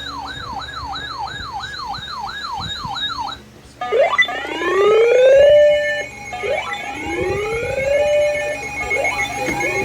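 A siren warbling rapidly up and down, about three cycles a second, cuts out briefly after about three seconds. It then switches to a wail that climbs in pitch and levels off, three times over.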